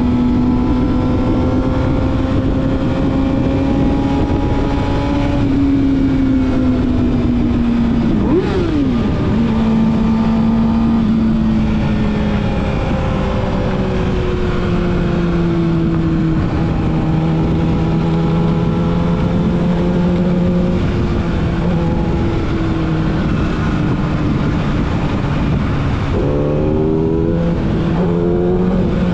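Yamaha YZF-R6's inline-four engine through a full aftermarket exhaust, heard from on the bike while cruising at fairly steady revs with wind noise underneath. A short, sharp rev blip comes about eight seconds in, and the revs climb quickly near the end.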